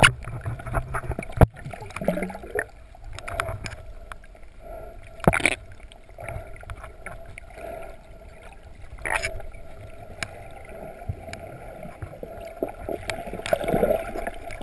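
Muffled underwater water noise from swimming, with a steady low rumble, scattered small clicks and a few sharp knocks, heard through a camera's waterproof housing.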